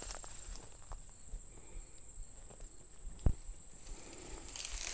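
Insects keep up a steady high-pitched trill, with one sharp thud about three seconds in. Near the end, footsteps crunch and rustle through dry weeds.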